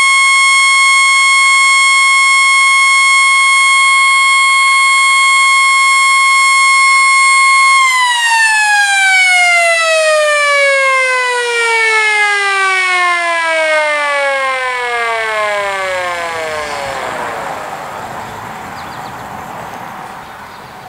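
Federal Signal Model A electromechanical siren sounding one steady, high single tone, then switched off about eight seconds in and winding down, its pitch falling slowly and fading as the rotor coasts to a stop.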